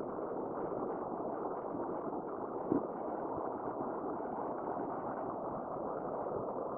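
Steady rushing of a river flowing over rocks, with one short knock a little under halfway through.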